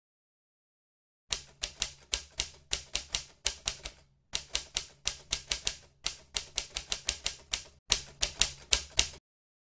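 Typewriter keystrokes clacking at about four or five a second, used as a typing sound effect. The run starts about a second in, pauses briefly twice, and stops just before the end.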